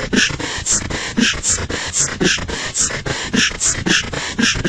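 Google Translate's German text-to-speech voice reading 'pv zk bschk' strings aloud as a beatbox, with breathy 'pv' kicks and hissing 'bschk' snares in a steady rhythm of about three to four hits a second.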